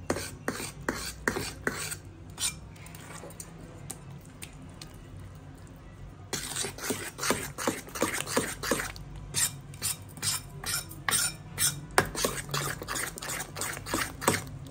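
Steel spoon stirring and scraping a thick wheat-flour and jaggery batter in a steel bowl, with short clinks and wet scrapes against the bowl. Slower and fainter at first, it turns brisk from about six seconds in, at about two or three strokes a second.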